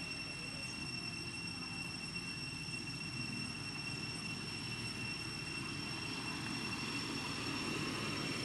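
Steady outdoor background rumble, like distant traffic or wind, with a constant thin high-pitched whine on top.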